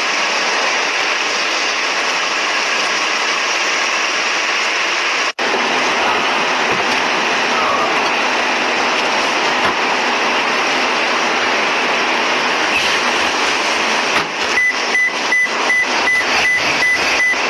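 Steady rushing noise, with a high electronic beep repeating about three times a second near the end.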